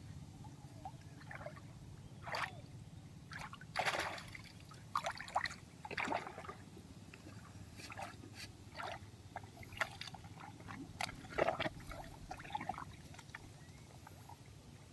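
Water sloshing and splashing in short, irregular bursts, over a steady low hum.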